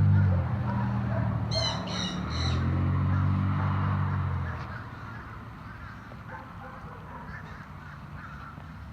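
A bird gives three quick harsh squawks about a second and a half in, over a low steady drone that fades out about halfway through.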